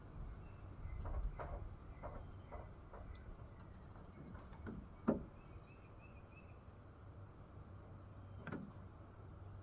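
Low wind rumble in a treehouse, with scattered soft clicks and knocks from handling, a louder thump about five seconds in and another near the end.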